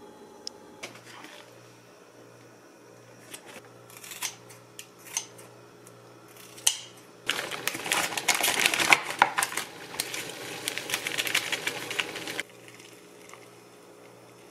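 Plastic bag crinkling and rustling for about five seconds as noodles are shaken out of it into a paper cup, after a run of scattered clicks and taps from handling packaging. A steady low hum runs underneath.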